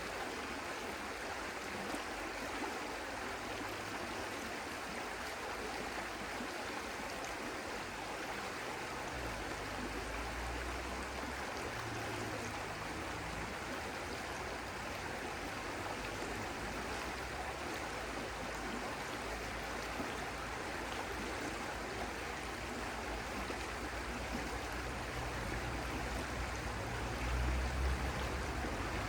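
Stream water flowing steadily. A low rumble comes in about nine seconds in and is strongest near the end.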